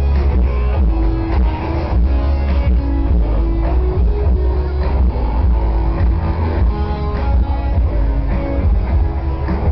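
Loud live music from festival stage speakers, with electric guitar lines over heavy, steady bass.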